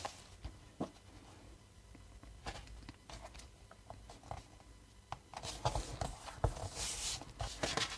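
Paper handling: a few soft taps, then from about five seconds in, hands rubbing and pressing a glued white cardstock panel flat onto a card base to stick it down.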